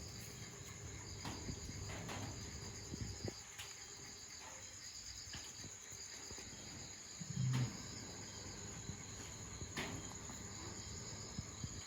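Steady high trilling of crickets, with one short low-pitched call about seven seconds in.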